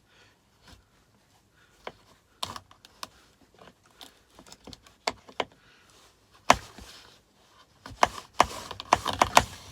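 Scattered clicks and knocks of a cable and a stripping knife being worked in a 3D printed plastic wire-stripping guide, with a quick run of clicks and scraping near the end.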